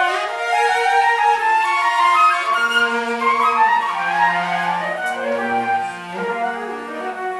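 Flute and cello playing a duet: the flute moves in quick running figures over held notes in the cello.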